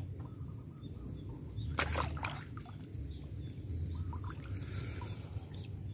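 Water sloshing and briefly splashing, in a short cluster about two seconds in, around an angler wading in a reservoir, with a few small bird chirps and a steady low rumble underneath.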